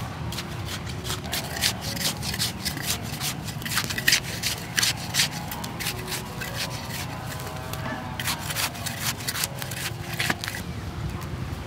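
Short-handled hand hoe scraping and chopping into dry, crumbly soil, with weeds being torn up by hand: a quick run of scratchy strokes, a lull around the middle, then more strokes.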